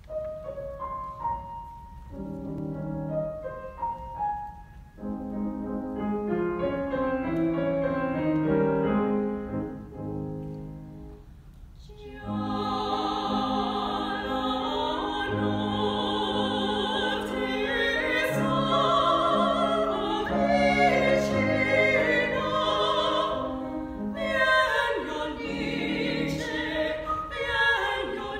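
Grand piano playing a solo introduction; about twelve seconds in, operatic soprano and mezzo-soprano voices enter, singing with strong vibrato over the piano.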